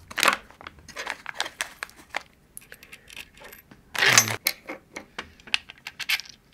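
Small metal screws and nuts clinking and rattling as they are picked through by hand, with a short burst of plastic-bag crinkling about four seconds in.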